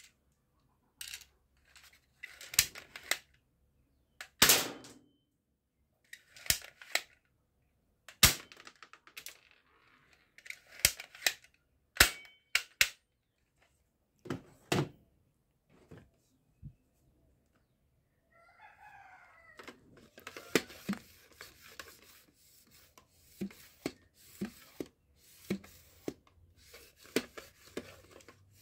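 Hard plastic toy guns handled on a tabletop: sharp clicks and knocks, a second or two apart, as they are picked up, worked and set down, then a denser run of lighter tapping and rustling in the last third. A short wavering call sounds about two-thirds of the way through.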